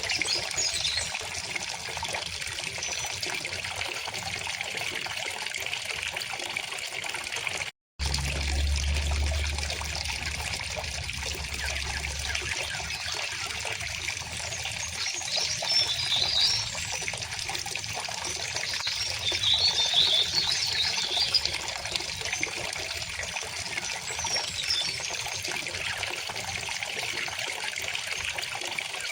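River water flowing steadily, with small birds chirping in short bursts a few times through the middle. The sound cuts out for a moment about eight seconds in.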